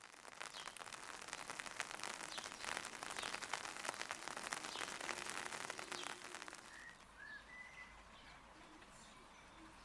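Rain pattering, dense and close for about six and a half seconds, then lighter, with a bird chirping two or three times about seven seconds in.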